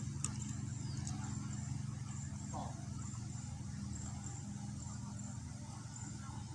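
An insect chirping in short, repeated high trills over a steady low hum.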